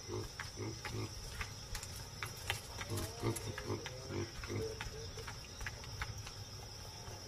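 Baboons grunting softly in short bursts, with scattered light clicks, over a steady high insect trill.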